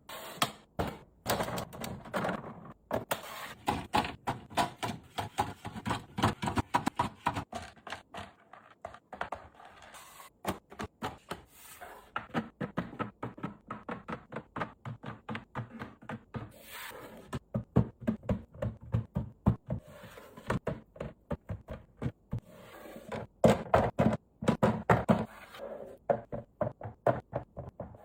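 Food containers and packages being handled and set down while restocking a fridge: a busy, irregular run of quick knocks, clicks and taps, louder in clusters near the start and near the end.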